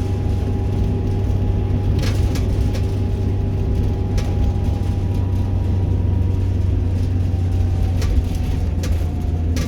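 A car being driven: a steady low engine and road rumble with a faint steady hum above it, and a few faint ticks.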